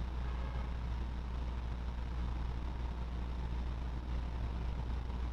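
Steady low hum under a faint, even hiss of background noise, with no distinct events.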